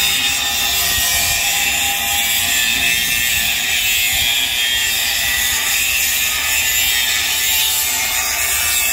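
A power tool running steadily through the work on the gate extension, an even high-pitched hiss at constant level.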